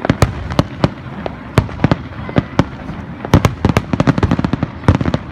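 Fireworks display climax: aerial shells bursting in a rapid barrage, many sharp bangs and cracks in quick irregular succession.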